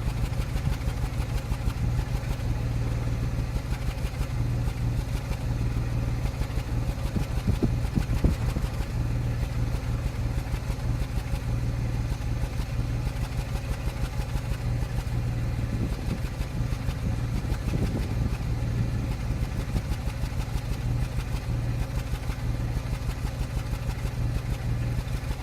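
2005 Land Rover Freelander's 2.5-litre V6 engine idling unevenly, with irregular stumbles breaking up the steady running. This is an intermittent misfire that new plugs, good coils and a new MAF sensor have not cured.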